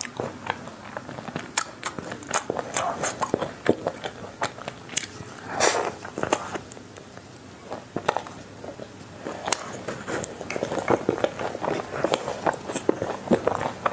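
Close-miked biting and chewing of a chocolate-coated ice cream bar, its crisp chocolate shell cracking in many sharp crunches. There is one louder bite about halfway through, and denser crunching near the end.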